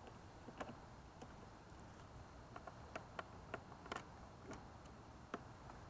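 Scattered light clicks and taps, about ten over a few seconds, from a cable's round connector being handled and fitted into the portable magnetometer console.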